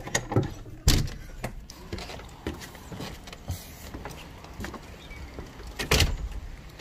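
Footsteps and knocks as someone goes out through a door onto a wooden deck, with phone-handling noise. The sharpest knock comes about a second in and the loudest just before the end, over a low rumble.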